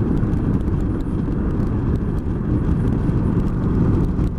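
Motorcycle on the move: a steady engine drone mixed with wind rushing over the rider's microphone.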